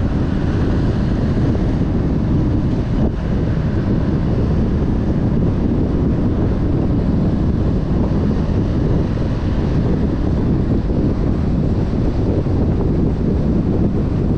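Steady low rumble of a car driving: road and wind noise.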